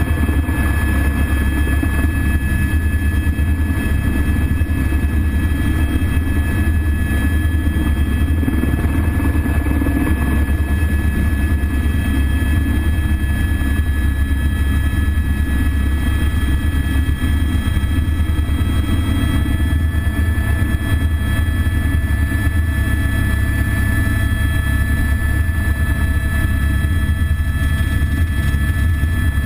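Cabin noise of an AS350 B3 single-engine turboshaft helicopter in flight, heard from inside the cockpit. A steady low drone from the rotor and engine runs with a constant high whine over it.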